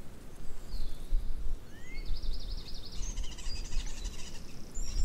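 Wild birds singing: a short rising call about two seconds in, then rapid high trills and chirps, over a steady low rumble.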